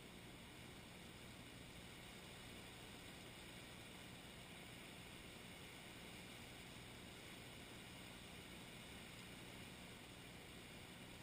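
Near silence: a faint, steady hiss with no distinct events.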